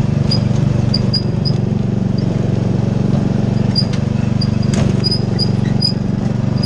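Lawn mower engine running steadily while towing a wagon, with repeated short high-pitched squeaks and a sharp knock near the end.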